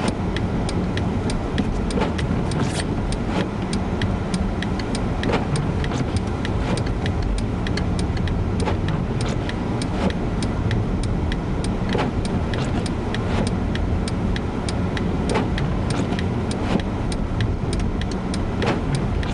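Steady low road and engine rumble heard inside a car's cabin while driving, with frequent sharp, irregular ticks, a few a second.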